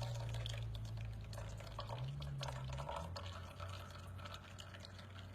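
Shaken cocktail poured from a shaker through a strainer into a cocktail glass, the liquid trickling and splashing into the glass and tapering off, over a low steady hum.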